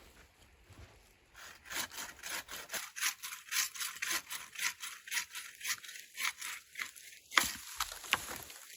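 Wood being cut with a hand saw: even back-and-forth strokes, about two to three a second, then a sharp crack near the end followed by a few more strokes.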